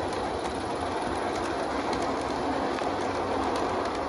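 Accucraft Sabrina live steam locomotive chuffing steadily, its exhaust beat strengthened by a Summerlands Chuffer in the blast pipe, with the small clicks of a train of cars rolling on the track.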